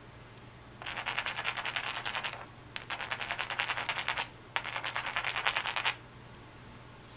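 Edge of a flint piece being abraded: a tool scraped rapidly back and forth along the flint in three bursts of about a second and a half each. This is the grinding that readies the edge as a striking platform for knocking off the next flake.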